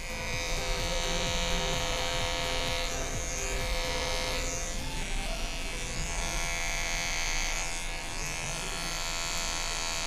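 Cordless electric hair clipper buzzing steadily while trimming a beard, its tone wavering briefly a few times.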